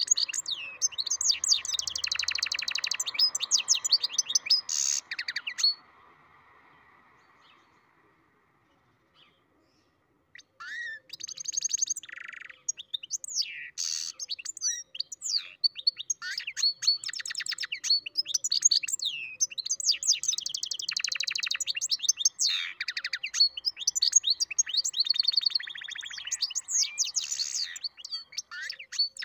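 A European goldfinch × canary mule singing a fast twittering song of rapid trills and buzzy rolls. It stops for about four seconds some six seconds in, then takes up the song again and sings on.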